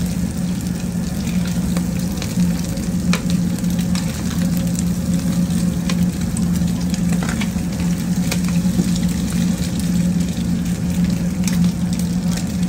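Chopped meat sizzling in oil on a steel flat-top griddle, over a steady low hum, with scattered light clicks of metal tongs against the griddle.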